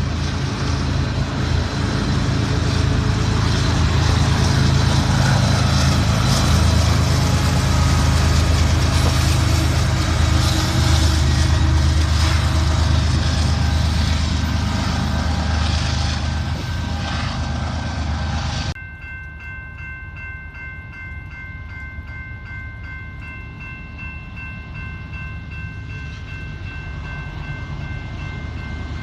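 Freight train passing close, its diesel locomotive engines running with a deep rumble and wheel clatter. After an abrupt cut about two-thirds of the way in, a locomotive air horn sounds a steady multi-note chord, quieter than the passing train.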